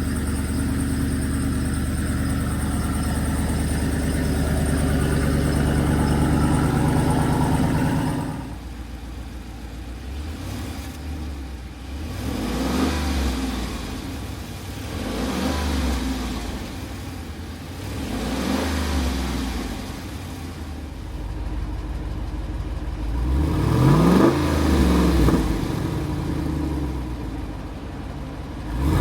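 The 2023 Jeep Wrangler 392's 6.4-litre Hemi V8 runs at a steady idle for about eight seconds. After a sudden change it idles lower and is revved in short blips about every three seconds, with a bigger, higher rev a few seconds before the end.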